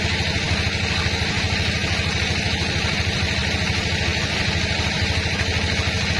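Sawmill machinery running steadily, a low, even throb with a hiss above it.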